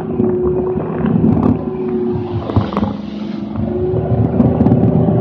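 Armoured tracked vehicle on the move: an M113A1's Detroit Diesel 6V53 two-stroke diesel running steadily under the clatter of its tracks and hull. The engine note eases about halfway through and picks back up near the end.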